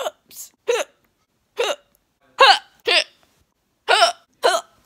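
A woman hiccuping over and over: about eight short, sharp hiccups with a pitched squeak, spaced unevenly about half a second to a second apart, with dead silence between them.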